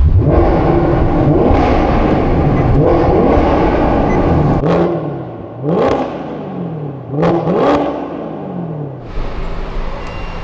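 Maserati GranCabrio's Ferrari-derived 4.7-litre V8 revving hard, then its pitch swings up and down several times, with sharp exhaust cracks between the revs. It settles to a lower, steadier note near the end.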